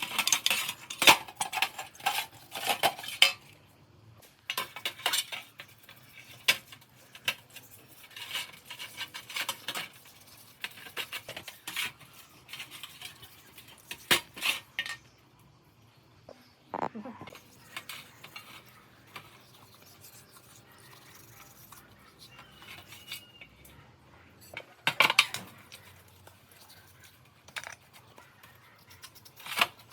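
Small metal parts and hand tools clinking, rattling and scraping against each other in irregular clusters, busiest in the first few seconds and again about 25 seconds in.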